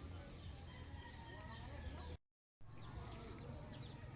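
Outdoor nature ambience: a steady high-pitched drone of insects, with a few short, falling bird chirps in the second half over a low rumble. The sound cuts out completely for a moment about two seconds in.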